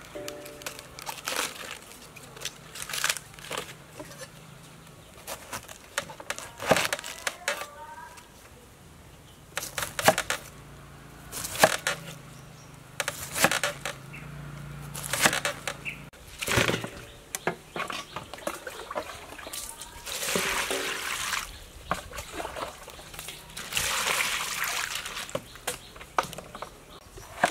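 Crisp cracks and crunches of cabbage leaves being snapped off the head and a knife cutting through the cabbage, as a run of separate sharp sounds. Twice near the end, a longer stretch of water splashing as the cabbage pieces are washed in a basin.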